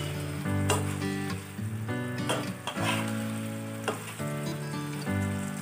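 Drumstick pieces in tamarind and mustard gravy sizzling in a non-stick frying pan, stirred with a metal spatula that scrapes and knocks against the pan a few times. Soft background music plays underneath.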